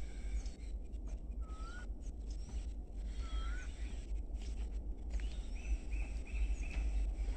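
Birds calling over a steady low rumble. There are short rising whistles, a few high chirps, and a quick run of about five notes about six seconds in.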